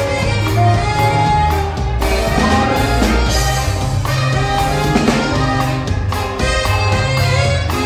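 Live norteño band music with no singing: the twelve-string bajo sexto picks a melody over a low bass line and steady drums.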